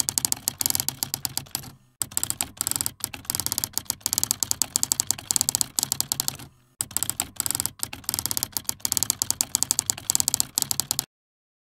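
Typing sound effect: a rapid, uneven stream of key clicks, broken by two short pauses, that stops suddenly near the end as the typed-out text completes.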